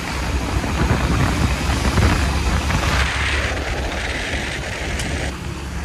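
Wind rushing over the microphone with a motor vehicle running underneath, the sound of riding along a road.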